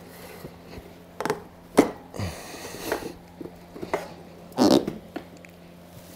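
Tyre levers clicking and knocking against the rim as an off-road motorcycle tyre's bead is levered on a little at a time, with rubber creaks and squeaks from the stiff tyre.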